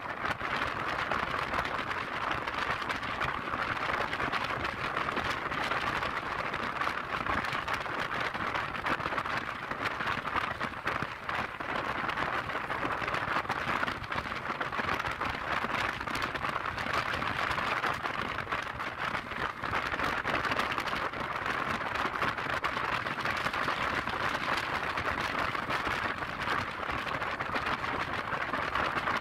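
Steady rush of wind and road noise on the camera's microphone from a Yamaha Lexi scooter riding along an open highway at cruising speed.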